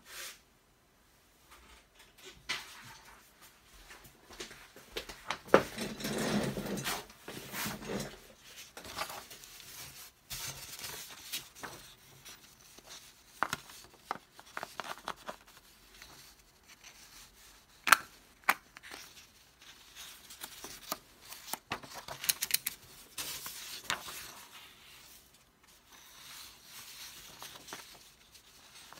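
Paper sheets rustling and rubbing as a corner is slid into a plastic corner rounder punch, with scattered sharp clicks of the plastic punch being handled.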